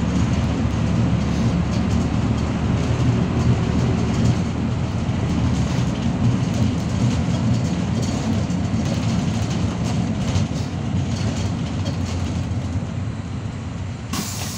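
Cabin noise inside a Bogdan A092 city bus on the move: a steady low engine and road rumble with loose panels and seats rattling, easing slightly near the end. Just before the end a sudden hiss of compressed air starts.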